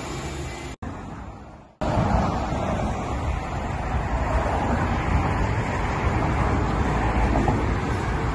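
Golf cart's gas engine running steadily at idle through its custom muffled exhaust, a low, even running sound. The sound drops out for about a second, a second in, then comes back steady.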